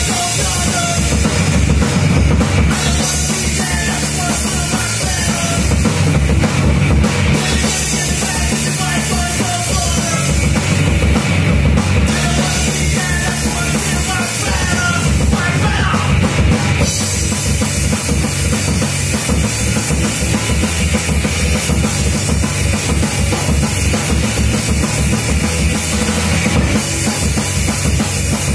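Live rock band playing: drum kit with kick drum driving a steady beat under electric guitars.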